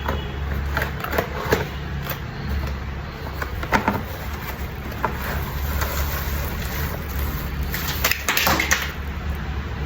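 A ring light and tripod being unpacked from their packaging: scattered crinkles, clicks and knocks of handling, with a busier cluster near the end, over a steady low hum.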